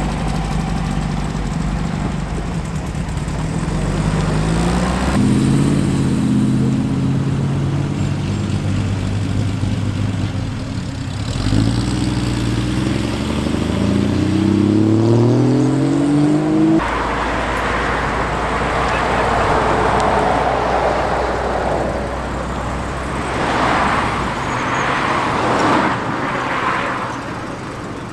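A car engine speeding up twice, its pitch rising each time, as it pulls away. This is followed by the steady rush of passing vehicles, swelling twice near the end.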